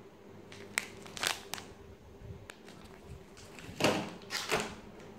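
Plastic packaging being handled: an anti-static bag and bubble wrap rustling and crinkling, with a few light clicks and taps. Two louder crinkling rustles come near the end.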